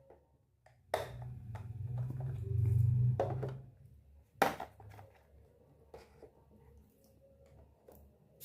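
Small toy kitchen pieces being handled on a hard surface. A click starts a low rubbing, scraping rumble that builds for a couple of seconds and dies away. Then comes one sharp click and a few light taps.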